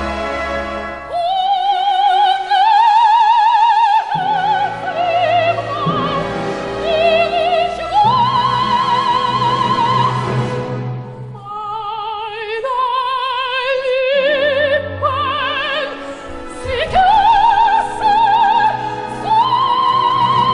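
Operatic soprano singing long, high held notes with wide vibrato, in several phrases, over a full orchestra.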